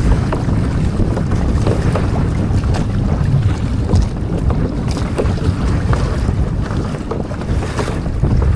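Wind buffeting the microphone on a Hobie Adventure Island sailing kayak under sail, with water splashing against the hull in scattered short slaps.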